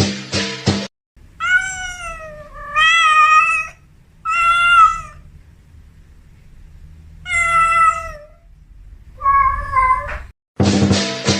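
A domestic cat meowing five times in long, drawn-out meows, with short gaps between them; the last meow is higher-pitched. Background music plays briefly before the first meow and again after the last.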